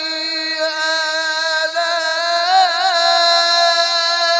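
A male qari's voice in melodic Quran recitation (tilawat), drawing out one long high note into a microphone, with an ornamental waver in the pitch about halfway through.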